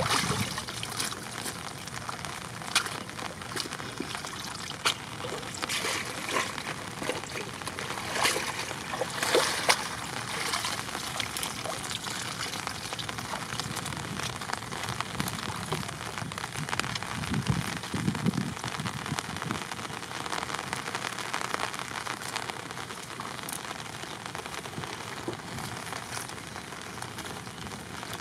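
Water splashing as a bamboo fish trap is hauled out of shallow paddy water, then streaming and dripping from the trap, with a steady patter of drops. The sharp splashes come mostly in the first ten seconds.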